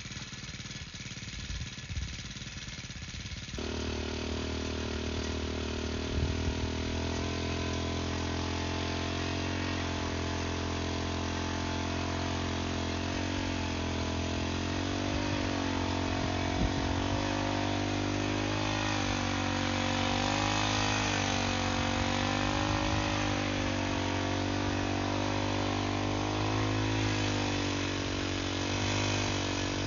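Petrol brush cutter engine running quietly at first, then revved up about four seconds in and held at speed, driving a mixing paddle through soil and cement. Its pitch wavers up and down as the paddle works through the heap.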